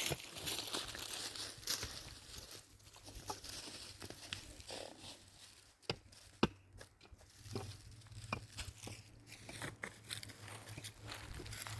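Irregular rustling and crunching with many sharp clicks, as of materials being handled or trodden, joined by a low steady hum from about seven and a half seconds in.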